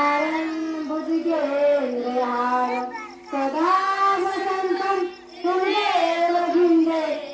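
A child's voice singing a slow devotional song in long held, wavering notes, with two short breaks about three and five seconds in.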